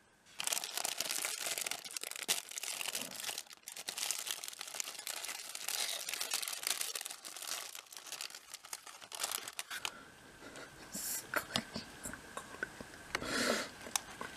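Plastic bread wrapper being torn open and crinkled as a fried-bun burger is pulled out of it. Dense crinkling runs for about ten seconds, then thins to scattered rustles and crackles, with one louder rustle near the end.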